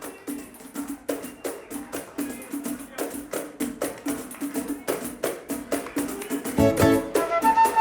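Samba percussion playing a quick, steady rhythm of sharp hand-percussion strokes over a pitched drum pulse. About six and a half seconds in, the full band comes in with bass and melody instruments and the music gets louder.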